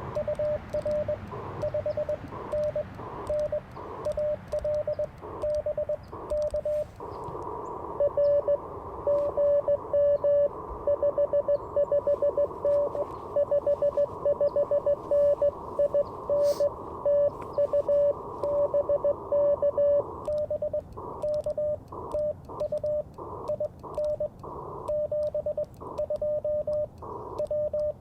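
Morse code (CW) from an Icom IC-705 transceiver: a single steady beep keyed on and off in dots and dashes over radio band hiss. From about seven seconds in to about twenty seconds in the keying is faster and louder, with more hiss behind it.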